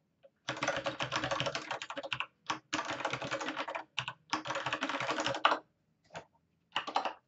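Computer keyboard typing: three quick runs of keystrokes, each a second or more long with short gaps between, then a few separate keystrokes near the end.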